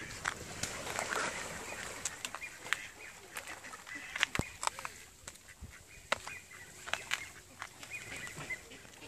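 Mallard ducks calling, with sharp footsteps and clicks on the dirt bank scattered throughout.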